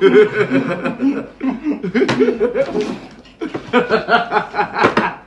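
Several men laughing and chuckling, with a sharp knock about two seconds in and another near the end as a small plastic water bottle hits the table.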